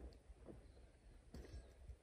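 Near silence: faint dawn bush ambience, a low steady rumble with a few faint, distant bird calls and one soft click about one and a half seconds in.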